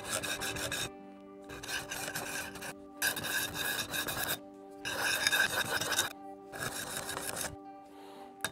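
Steel knife blade being ground on a DMT diamond bench stone, its extra-coarse side, in about six rasping strokes of roughly a second each with short pauses between. The blade is being reshaped to grind back a broken-off tip and chips in the edge.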